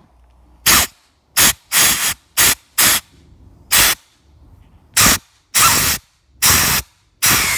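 Compressed-air blow gun firing about ten short hissing blasts of air into a brake caliper's fluid port. The blasts get longer near the end. The air is pushing on the caliper piston to test whether it is seized or will move.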